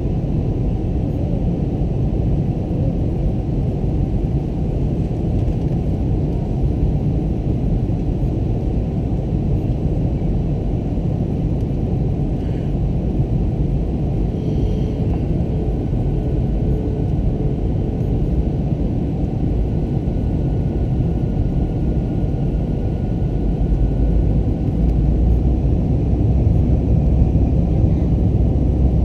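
Airbus A321 cabin noise on the descent to landing: a steady low rumble of the engines and rushing air, picked up through the cabin window. The low rumble grows louder about five seconds before the end.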